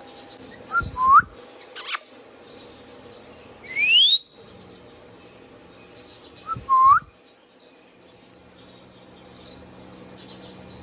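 Indian ringneck parakeet calling with short, rising whistled notes, four calls in the first seven seconds, one of them a brief high squeak, then a pause.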